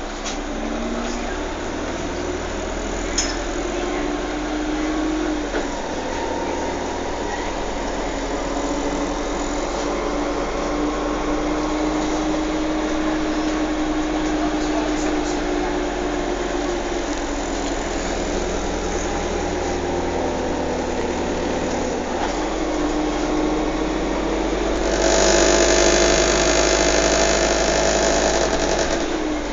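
A vehicle running, heard from inside: a steady low rumble under a motor whine that slowly rises and falls in pitch. From about 25 seconds in, a louder hiss of road or wind noise joins it.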